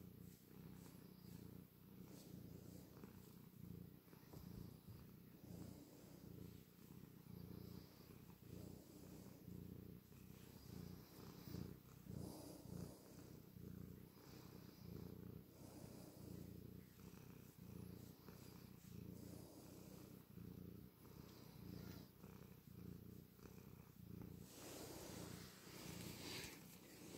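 Black-and-white domestic cat purring close up while being stroked: a low, steady purr that swells and eases in slow waves with each breath.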